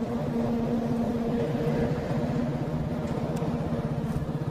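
Vehicle engine running steadily, a low even hum as it drives along.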